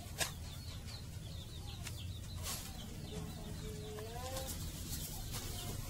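Chickens clucking, with one longer call that rises in pitch about three seconds in, and a few sharp clicks.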